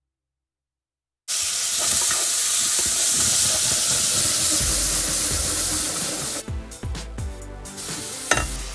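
A pot of seaweed soup boiling hard on an electric cooktop, a steady loud hiss that starts abruptly about a second in. It grows softer with scattered clicks after about six and a half seconds, and a sharp knock comes near the end.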